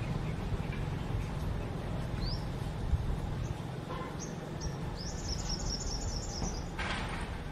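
Outdoor ambience: a bird's high chirps over a steady low rumble, with a quick run of repeated chirps about five seconds in. A short rustling burst comes near the end.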